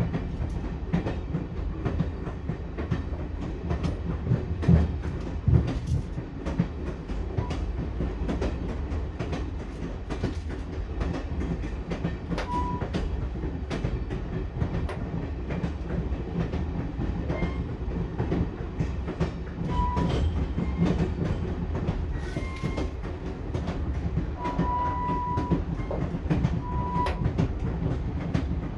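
Passenger train in motion: a steady low rumble with the wheels clicking over rail joints, and two heavier knocks about five seconds in. A few brief high tones sound in the second half.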